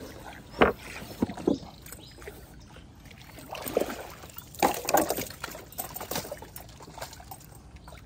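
Irregular splashes of water and sharp knocks around a small wooden boat while a hooked fish is fought on rod and line; the loudest come about half a second in and again near the middle.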